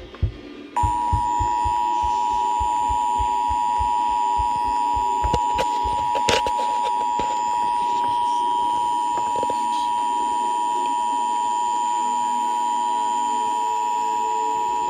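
Emergency Alert System attention signal: a loud, steady alarm tone that starts just under a second in and holds without a break, announcing that a warning message follows. A single click sounds about six seconds in.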